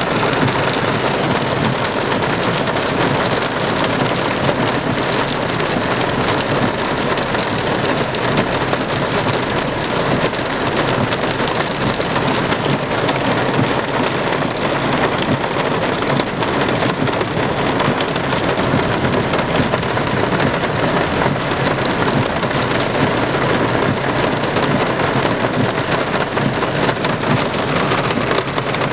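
Heavy downpour of rain mixed with pea-sized hail, falling steadily as a dense, even hiss of drops.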